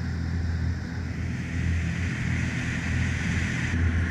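Dive boat's engine running steadily under way, a low hum, with the hiss of water rushing and spraying along the hull.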